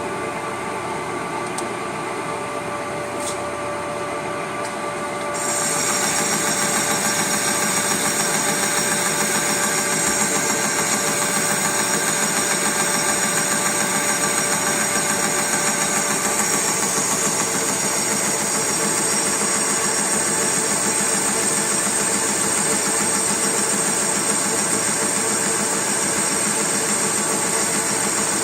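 Workshop machinery running steadily with a mechanical whine and hum. About five seconds in, a higher-pitched hiss and whine joins and the sound gets a little louder, then holds steady.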